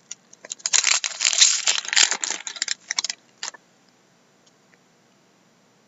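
Trading cards and their packaging being handled: dense rustling and crinkling with quick clicks for about three seconds, ending in one sharp click, then quiet.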